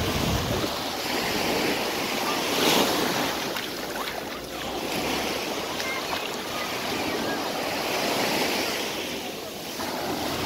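Surf breaking on a sandy beach, the wash swelling and falling back in slow surges, loudest a few seconds in.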